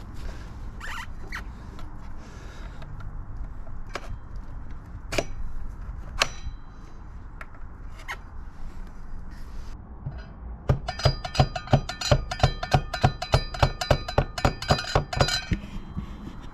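A few separate metallic knocks, then a fast run of about twenty ringing metal clicks, about four a second, lasting some five seconds, as the front axle is fitted and its bolt started.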